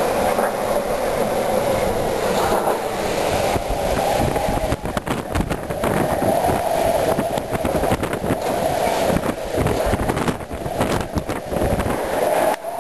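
Strong gusting wind of about 50 miles an hour, roaring steadily and buffeting the microphone with irregular low rumbles that come thickest in the middle of the stretch.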